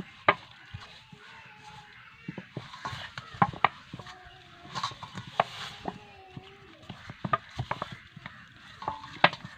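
Hands kneading roti dough in a stainless steel bowl: irregular knocks and taps as the dough and fingers press and strike against the steel.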